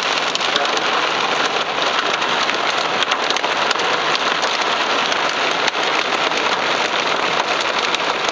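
Heavy rain falling on a car's roof and windshield, heard from inside the car: a dense steady hiss full of sharp drop impacts.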